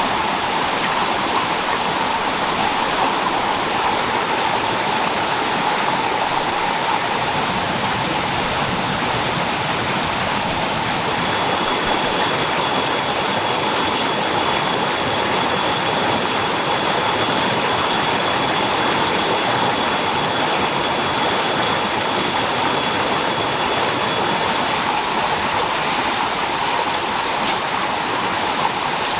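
Water rushing steadily over rocks in a fast stream, an even unbroken rushing noise. A faint, thin, steady high tone sounds for about a dozen seconds in the middle.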